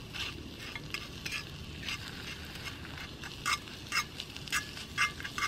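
A fork stirring and scraping egg in a cast-iron skillet as it sizzles in olive oil, with sharp taps of metal on the pan about twice a second in the second half.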